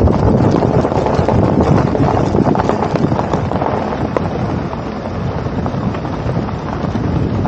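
Loud wind buffeting on the microphone of a camera travelling along a road, a dense rumble with irregular crackles, easing slightly about two-thirds of the way in.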